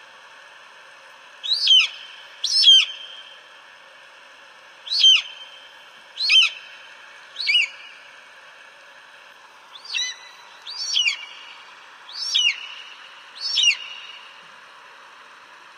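An eagle calling: a series of about nine short, high calls, each sliding down in pitch, spaced a second or two apart over a steady hiss.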